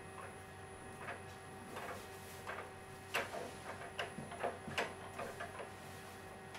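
Irregular light clicks and ticks as a milling machine's spindle and ER collet nut are turned back and forth by hand, over a faint steady hum.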